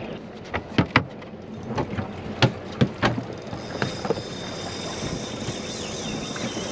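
A run of irregular sharp knocks and clicks on a small boat, over a steady wash of wind and water noise. The knocks stop about three and a half seconds in, leaving the steady noise with a thin high hiss.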